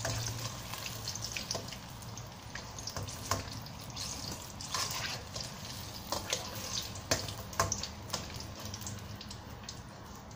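Eggplant pieces deep-frying in hot oil in a wok: a steady sizzle with many scattered crackles and pops as the crisp pieces are scooped out with a wire mesh strainer.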